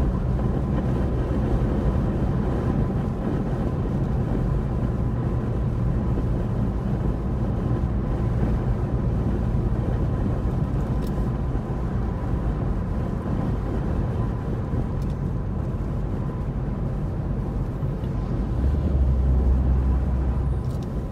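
Car driving on city streets: steady low rumble of engine and tyre noise, swelling briefly near the end.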